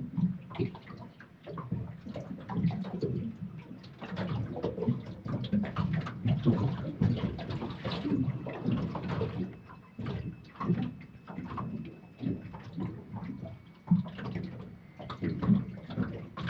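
Choppy water slapping and lapping irregularly against the hull of a boat at anchor.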